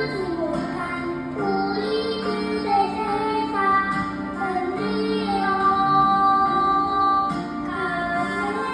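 A young child singing a children's song over musical accompaniment, the voice moving from note to note above steady held chords.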